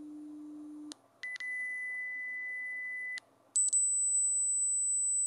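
Phone Doctor Plus speaker-test tones from a smartphone: a low 300 Hz tone stops about a second in, then a steady 2000 Hz tone plays for about two seconds, and after a short gap a high 8000 Hz tone starts and holds. Each tone is louder than the last, and each starts and stops with a click.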